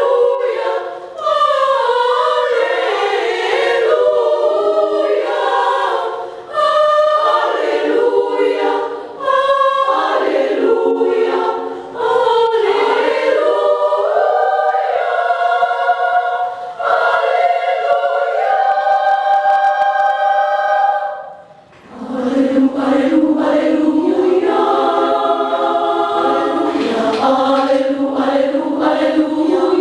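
Women's choir singing a sacred song in parts, unaccompanied, in phrases with short breaths between them. About two-thirds through the singing stops briefly, then resumes with lower voices entering.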